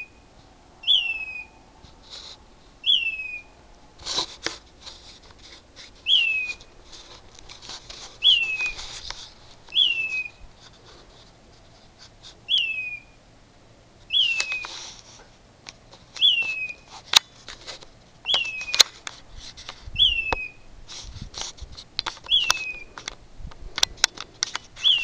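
A bird calling at night: a short, high whistled note that falls in pitch, repeated about every two seconds. Sharp clicks and a few brief rustling bursts come in between the calls.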